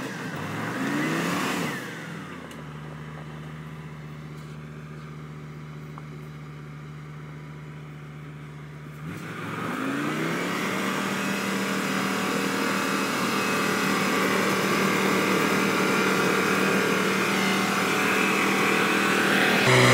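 Diesel engine of a Tatra logging truck with a full load of logs, pulling through mud. The revs rise and fall briefly, then settle to a steady, quieter note for several seconds. About nine seconds in the engine revs up again and runs hard, growing slowly louder.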